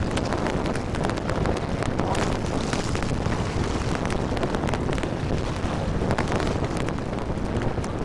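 Wind buffeting the microphone: a steady rush with frequent sharp crackles.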